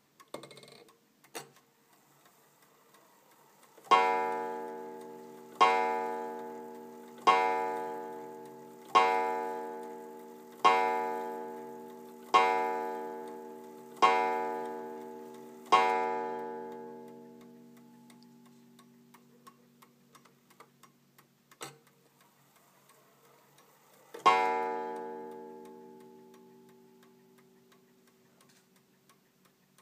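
Anvil Perivale art deco mantel clock striking eight on its coiled wire gong, each stroke ringing out and slowly fading, about one and three-quarter seconds apart; a single further stroke rings some eight seconds later. The movement ticks faintly underneath, with a couple of light knocks in the opening second or so.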